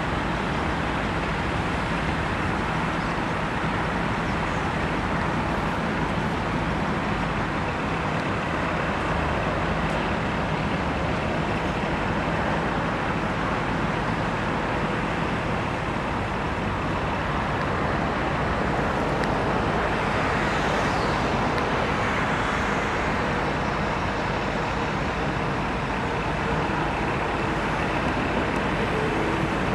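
Steady hum of motor-vehicle traffic with a low engine drone underneath, holding an even level throughout.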